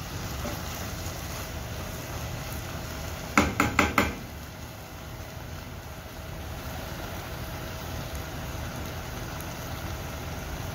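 Minced mutton, onion and tomato frying in a nonstick pan with a steady sizzle. About three and a half seconds in comes a quick run of four knocks, a wooden spatula against the pan.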